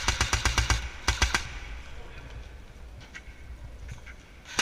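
Airsoft gun firing a rapid burst of about eight shots, then a short burst of three or four shots about a second in, followed by a few faint, distant single shots.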